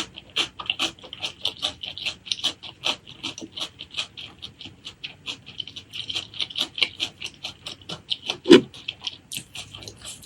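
Close-miked wet chewing and lip-smacking of a person eating: quick sticky clicks, several a second. One louder, deeper thump comes about eight and a half seconds in.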